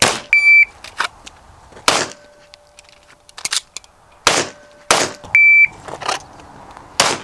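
Electronic shot timer beeps twice, each a short steady tone, with sharp, loud gunshots between and after the beeps. The strongest shots come about two seconds in, twice around four to five seconds in, and near the end.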